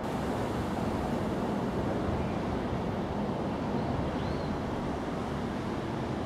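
Steady outdoor background noise, an even low rumbling hiss with no distinct events, and a faint short high chirp about four seconds in.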